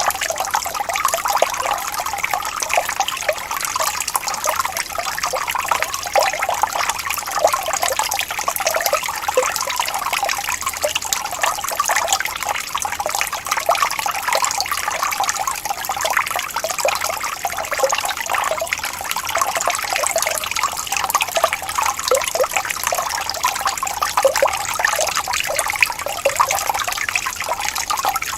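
A small waterfall: water splashing and trickling steadily over rocks, a continuous light splashing with no deep rumble.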